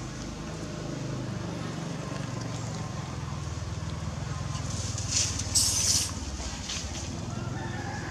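A steady low engine hum, with a short, loud rush of noise about five seconds in.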